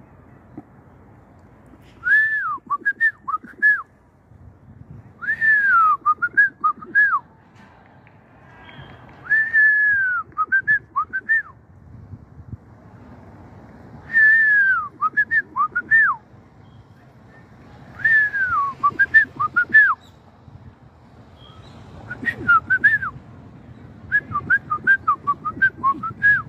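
Clear whistled phrases repeated about every four seconds, each a long note falling in pitch followed by three or four short notes. The last phrases near the end break into a run of quick short notes.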